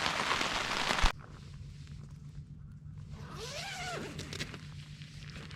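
Rain pattering on a tent, cutting off abruptly about a second in. After that, quiet outdoor ambience with a low hum and one faint rising-and-falling call near the middle.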